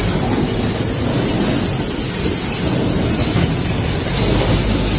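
Automated caster bracket riveting machine running: a steady low mechanical rumble with no clear beat.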